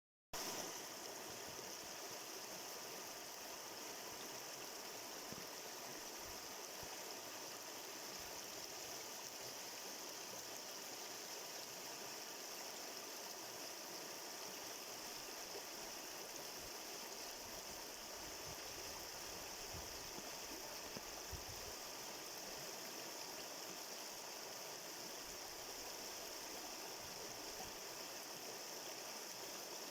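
Steady, unbroken rushing and trickling of a small stream.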